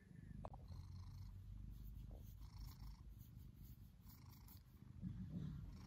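Domestic black-and-white cat purring, low and faint, while its head is stroked: a contented purr that swells a little near the end.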